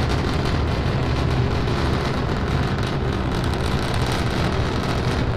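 Starship SN10's three Raptor rocket engines roaring in powered ascent: a steady, deep, noisy roar with no breaks.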